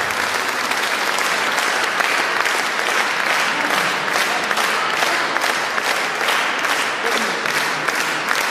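Concert audience applauding. About halfway through, the clapping settles into an even rhythmic beat, in unison.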